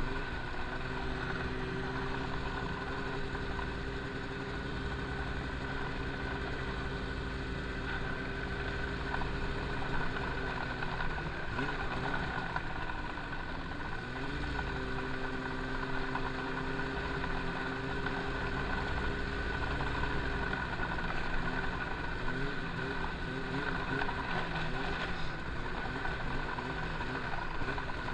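Snowmobile engine running steadily on the trail, under wind and track noise. About twelve seconds in, the engine note falls and climbs back, and later it wavers.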